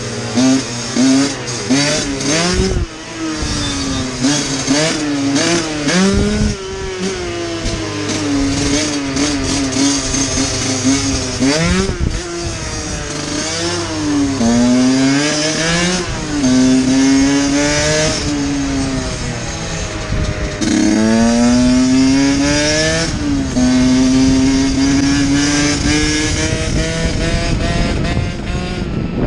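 Dirt bike engine running on the move, its revs repeatedly climbing and then dropping as the rider accelerates and changes gear, with steady wind noise.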